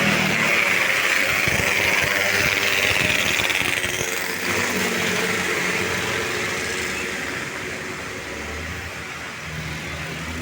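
A bus driving past at the roadside, its engine and road noise loud at first and then fading as it moves away.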